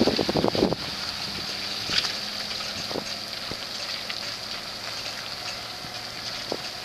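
Pickup truck towing a boat trailer up a ramp: a low steady engine hum under wind, with a burst of rattling knocks in the first second and a few single knocks later.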